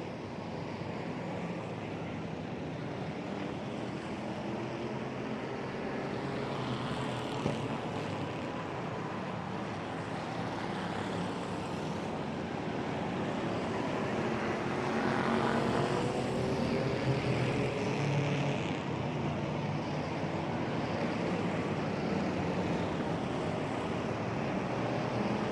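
Car engine running on the move, with steady road and engine noise; its pitch climbs slowly twice as it picks up speed.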